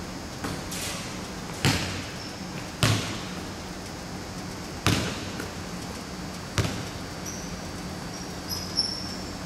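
A basketball thudding on the hardwood gym floor about five times, sharp thumps a second or two apart, each ringing briefly in the large hall. Short high sneaker squeaks come near the end.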